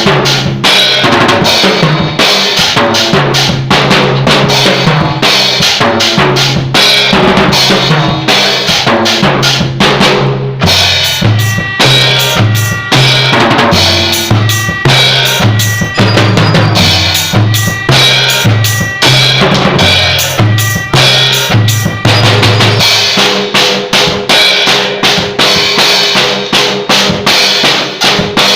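A drum kit playing a steady, busy beat of kick, snare and rimshot hits over a stepping bass line, as part of a band playing a song.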